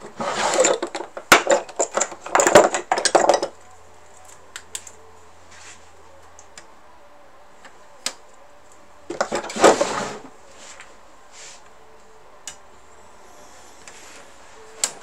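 Small hard objects being handled on a workbench: a burst of clattering and clicking lasting about three and a half seconds, another shorter burst about nine seconds in, then a few single clicks.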